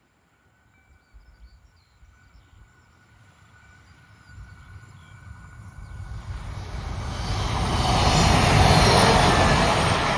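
Passenger train hauled by the SD85-009 diesel locomotive approaching and passing, its engine and wheel noise growing steadily louder over several seconds and loudest near the end.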